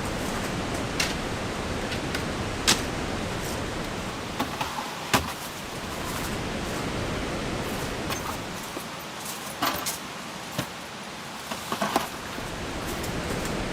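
Steady hiss of rain with irregular sharp taps and clicks scattered through it; the loudest come about 3, 5, 10 and 12 seconds in.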